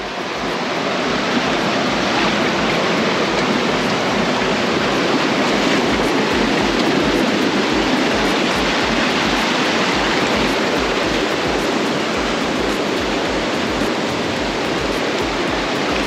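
Steady, loud rush of falling and flowing water from a waterfall on a mountain creek.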